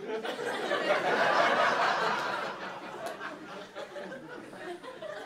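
Comedy club audience laughing, swelling right away, peaking about a second in and dying down over the last few seconds.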